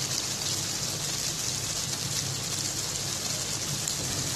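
Chicken kadai curry sizzling and bubbling in a steel kadai on the stove: a steady, even hiss with a low hum underneath.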